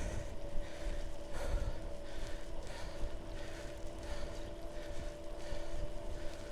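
Mahle X35 rear hub motor of an e-bike whining steadily as it assists up a steep climb, with wind rumbling on the microphone.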